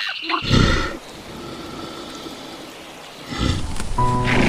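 A large animal roaring in two loud, rough bursts, one about half a second in and another near the end.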